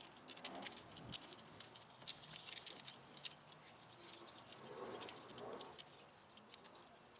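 Faint scattered clicks and rustling from hands working wiring and plastic split-loom tubing.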